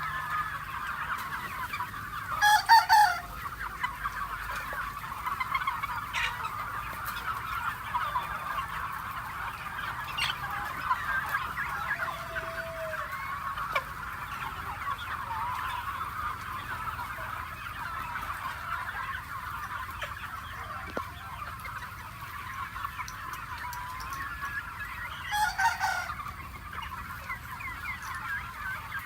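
A flock of free-range chickens clucking and chirping in a steady chatter, with two short, louder calls, one about three seconds in and one near the end.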